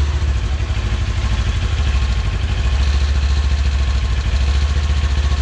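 Kawasaki Ninja 400's parallel-twin engine idling steadily through its stock muffler, the exhaust note so quiet with the factory exhaust back on.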